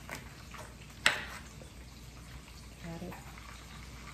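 A chef's knife slicing through a zucchini on a glass cutting board, with one sharp knock about a second in as the blade strikes the glass.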